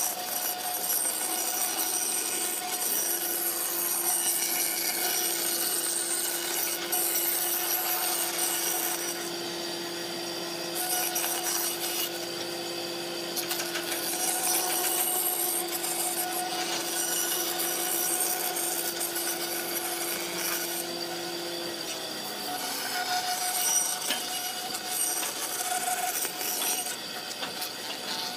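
Electric power tool cutting wood: a steady motor tone under a dense cutting noise that breaks off briefly a few times, with the motor winding down about three quarters of the way through.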